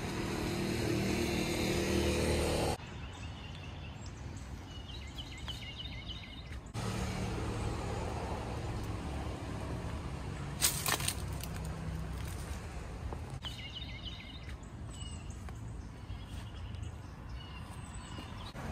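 Outdoor ambience with a low steady rumble, changing abruptly at each cut between clips, and small birds chirping now and then. A single sharp click about ten and a half seconds in.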